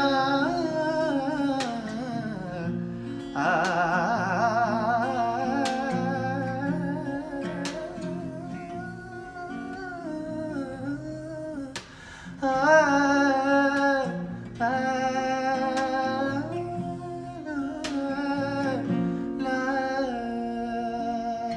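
Wordless sung melody, humming and held vowel notes with a wide vibrato, over an acoustic guitar being played.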